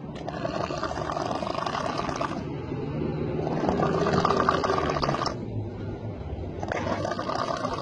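A person snoring in their sleep: three long, noisy snoring breaths about three seconds apart, with quieter breathing between them.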